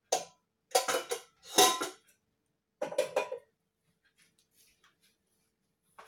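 Small metal repair tool clinking and scraping against the opened iPad 2's casing in several short bursts of rapid clicks, the loudest about a second and a half in, followed by faint ticking.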